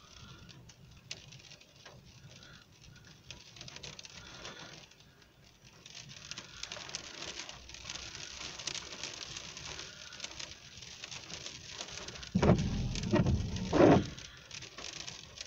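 Steady rain pattering, building up about six seconds in, with two loud low bursts near the end.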